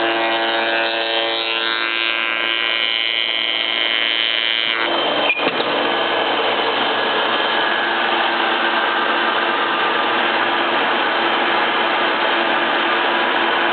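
A&B Loc Drive 440 SI automatic rotary shaper running with a steady, many-toned whine. About five seconds in there is a sharp knock, and the sound turns to a rougher, noisier rush.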